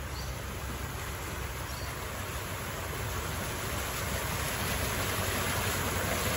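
Floodwater rushing steadily while a Mitsubishi ute wades slowly through it, its engine running and tyres splashing, growing louder as it approaches.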